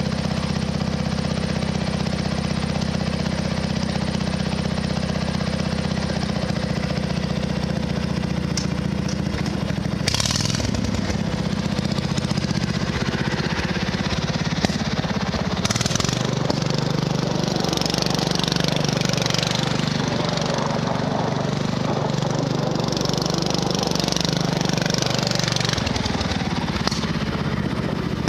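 Riding lawn mower's engine running steadily while the mower is driven. About ten seconds in the engine note shifts, and later a hiss comes and goes over it.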